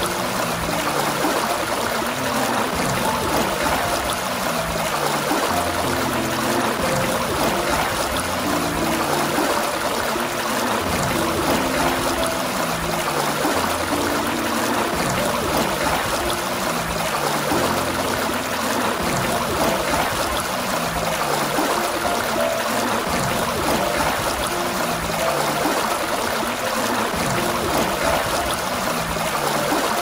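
Water gushing steadily from a fountain, an even rushing splash. Underneath runs a soft bed of slow, low music notes.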